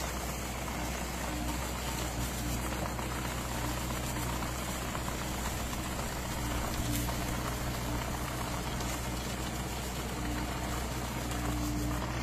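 Engine of a tractor-mounted olive tree shaking machine running steadily, with a constant low hum and a higher tone that comes and goes several times.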